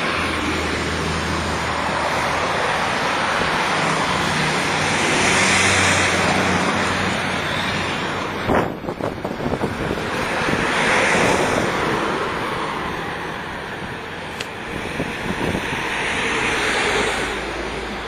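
Wind rushing over the microphone in swells that rise and fade, with a low engine hum under it for the first half and a single sharp knock about eight and a half seconds in.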